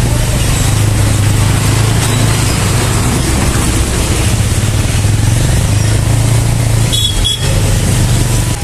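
Vehicle travelling on a rough road: a steady low engine hum under loud road and wind noise, with a brief break in the noise about seven seconds in.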